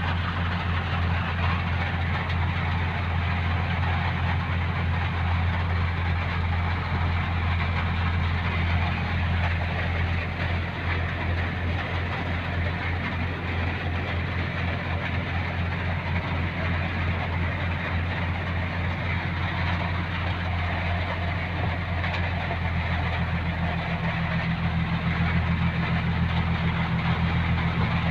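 A vehicle engine idling steadily, with the even hiss of rain over it.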